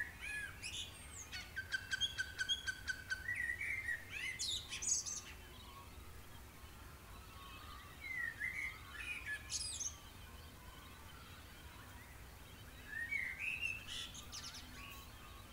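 Birds singing: bursts of high chirps and whistled up-and-down notes, with a fast trill in the first few seconds, then two shorter bursts of chirps later on.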